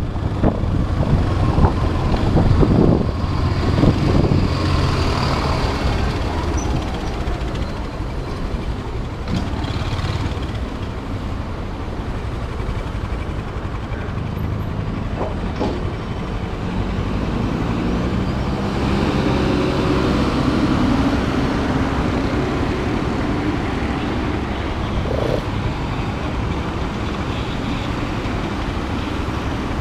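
Motorcycle engine running while riding through city traffic, its pitch shifting as the bike speeds up and slows, with other vehicles such as trucks and buses around it.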